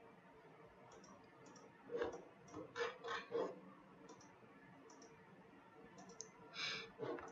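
Computer mouse clicking, a string of short separate clicks scattered through, with a few louder ones about two to three and a half seconds in.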